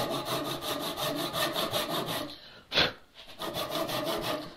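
Ryoba Japanese pull saw cross-cutting a pine 2x4, its teeth rasping through the wood in quick repeated strokes. The sawing pauses briefly about two and a half seconds in, where a short loud breath is heard, then resumes until just before the end.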